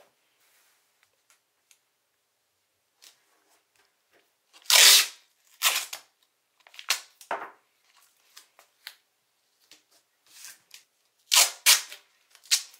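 Masking tape being pulled off the roll and torn in short, sharp rips, with paper towels being handled on a table. The loudest rip comes about five seconds in, and two more come close together near the end.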